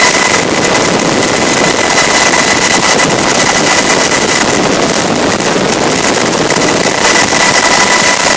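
Coast Guard MH-60 Jayhawk helicopter in flight, heard from aboard: a loud, steady rush of rotor and turbine noise with a steady high whine running through it.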